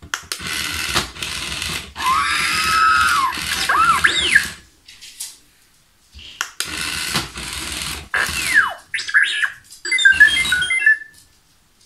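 Interactive R2-D2 toy figure playing R2-D2's beeps, whistles and warbling chirps, set off by pressing the buttons on its front. The sound comes in two bursts with rising and falling whistles: the first over about the first four and a half seconds, the second from about six seconds in, ending in quick chirps.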